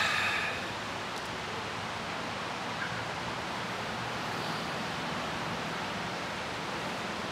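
A man's drawn-out voiced breath-sound from qigong healing-sounds practice, trailing off about half a second in, followed by a steady, even hiss of background noise.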